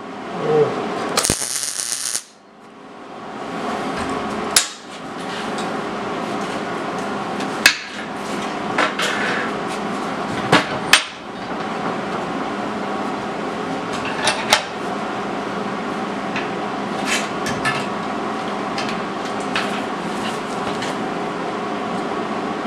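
MIG welder running weld beads: a steady crackling buzz from the arc, broken a few times by short stops and sharp clicks as the arc stops and restarts.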